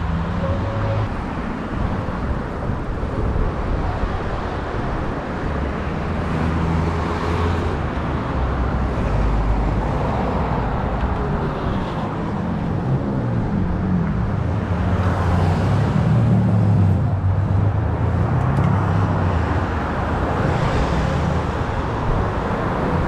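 Road traffic on a busy avenue: cars and motorcycles driving past in a continuous stream, their engine hum and tyre noise swelling and fading as vehicles go by.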